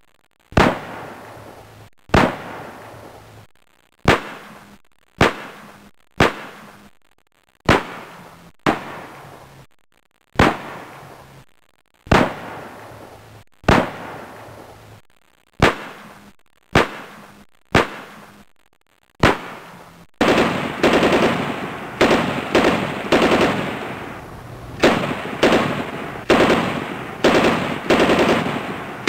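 Gunfire: single rifle-like shots about once a second, unevenly spaced, each with a short echoing tail. About twenty seconds in it changes to rapid, dense machine-gun-like bursts.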